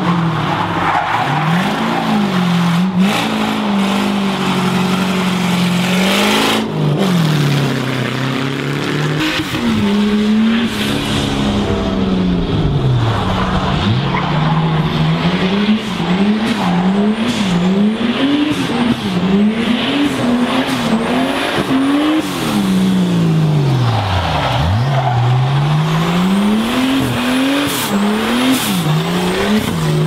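Drift car engine revving hard, its pitch rising and falling again and again with the throttle, over the hiss of sliding, squealing tyres. Around the middle the throttle blips come quickly one after another, and near the end the revs fall low once before climbing again.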